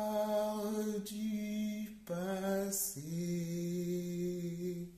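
A woman singing unaccompanied in long held notes, moving to a new note about once a second, then holding the last note for about two seconds before stopping near the end.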